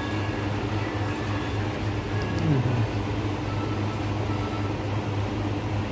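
Steady low machine hum over an even hiss, with a brief falling tone about two and a half seconds in.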